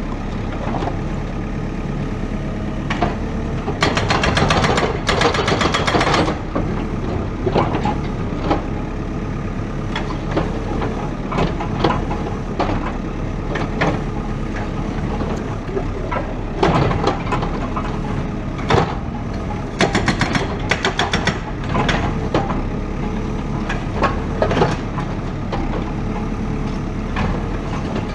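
Heavy diesel demolition machine engine running steadily under load. Over it come several bursts of rapid knocking and crunching, a few seconds apart.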